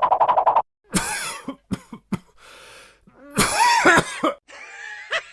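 A fit of harsh, separate coughs, meant as whooping cough, with a hissing breath between the two loudest coughs. A rapid, even buzzing pulse cuts off about half a second in.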